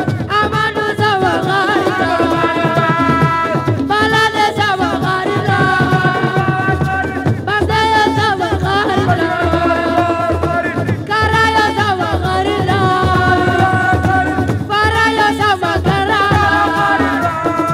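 Loud music: a sung melody in phrases of a few seconds over a steady drum beat.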